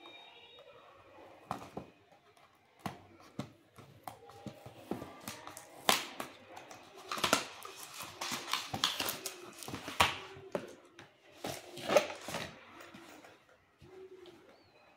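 A cardboard retail box being cut open and unpacked by hand: a utility knife slitting the seal, then cardboard flaps and packaging scraping, rustling and tapping in an irregular run of sharp noises, loudest from about six to twelve seconds in.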